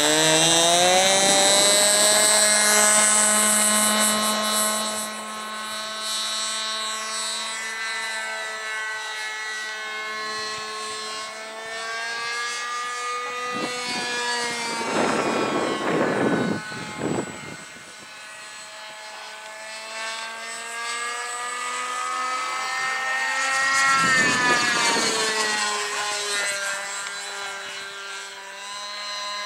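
Radio-controlled model airplane's engine opening up for takeoff, its pitch rising in the first second and loudest for the first few seconds. It then runs steadily as the plane flies, fading and returning as it circles, with its pitch drifting up and down. There are two brief noisy rushes, one around the middle and one a few seconds before the end.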